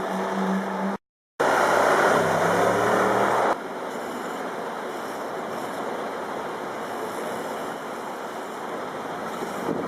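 Sports car engine held at a steady high rev, then a loud blip after a short cut whose note falls back down over a couple of seconds. It stops abruptly about three and a half seconds in, leaving a steady hiss of background noise.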